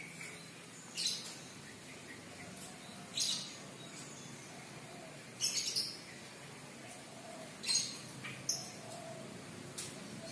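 Caged starling (jalak) giving short, harsh calls about every two seconds.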